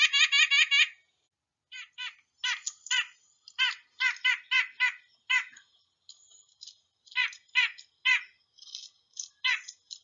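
White-breasted nuthatch calling a series of short 'ank' notes. A quick run of about eight comes at the start, then single notes at irregular gaps of a few tenths of a second to about a second.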